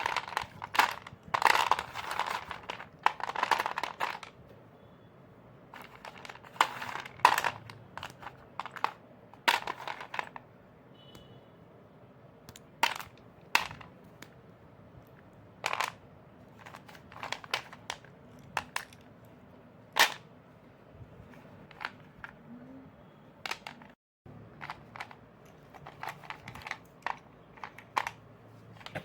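Chalk crunching and cracking: a dense run of crunches for the first four seconds, then scattered single sharp cracks every second or so.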